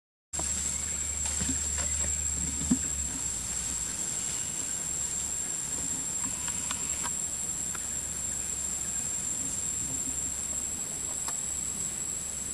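Outdoor forest ambience: a steady high-pitched whine over a low rumble, with a few faint ticks and rustles.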